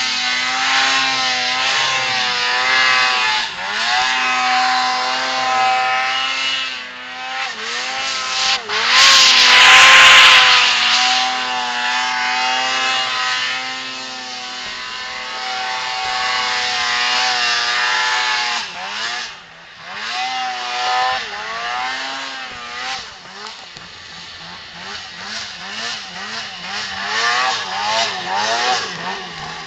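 Polaris 800 Dragon RMK snowmobile's two-stroke twin engine revving up and down repeatedly as the sled carves through deep powder. A brief loud rush of noise about nine seconds in.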